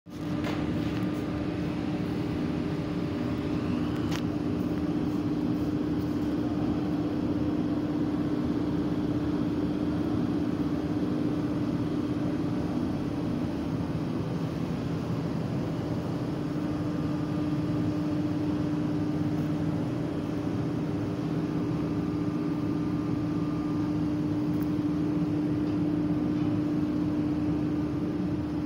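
Steady mechanical hum with one constant low tone over a noisy rumble, unchanging throughout.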